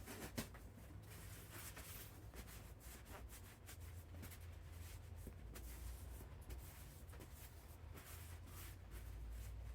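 Rag rubbing oily metal parts of a snowblower's gear selector mechanism: faint, irregular rubbing and scuffing over a low steady hum.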